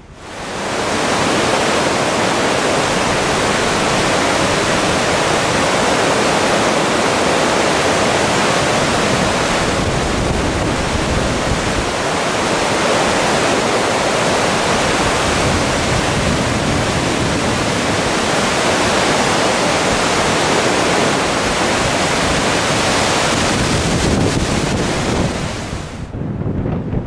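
Steady, loud rush of a fast-flowing river, fading in at the start and dropping away near the end.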